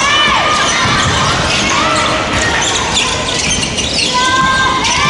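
Basketball being dribbled on a hardwood gym floor, with short sneaker squeaks and voices echoing in a large hall.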